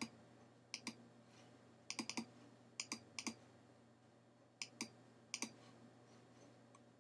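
Computer mouse button clicking: several short, quiet clicks, mostly in quick pairs, with pauses of a second or so between them.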